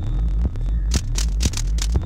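Electronic dance music track: a heavy kick drum hitting twice a second over a droning low bass, with hissing high-pitched noise stabs between the beats.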